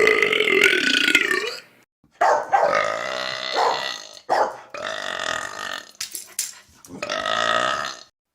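A person belching: a run of about five long, drawn-out burps, each a second or more, with short breaks between them.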